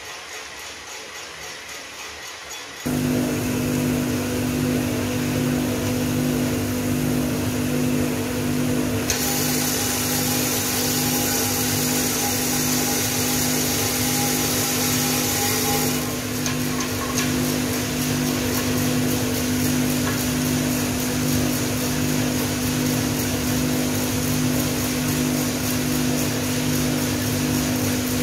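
Small drum coffee roaster running, a steady motor and fan hum that comes in loud about three seconds in. From about nine to sixteen seconds a rushing hiss is added: the green peaberry beans pouring from the hopper into the hot drum as the batch is charged, before the drum tumbles them on under the same hum.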